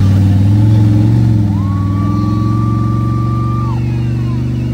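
A heavy truck engine running loud and steady. A thin high whine comes in about a second and a half in and stops about two seconds later.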